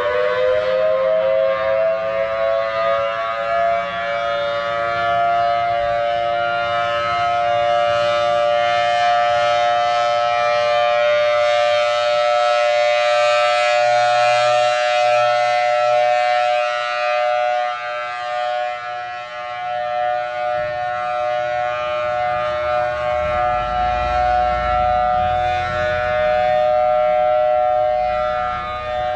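Civil defense air raid siren finishing its wind-up about a second in, then holding a loud, steady two-note wail.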